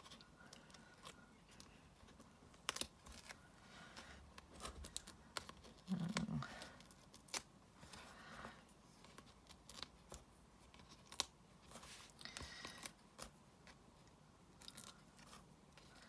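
Fingernails picking and peeling the paper release backings off foam adhesive dimensionals stuck on cardstock: faint, scattered small clicks and tearing sounds.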